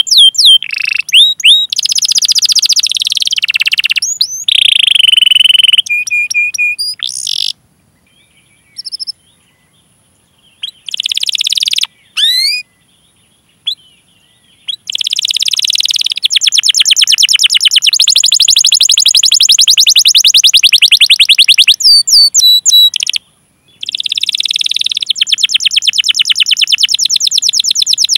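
Domestic canary singing: quick chirped 'cuit cuit' calls and pitch glides, then long, fast rolling trills of rapidly repeated notes, broken by a few short pauses.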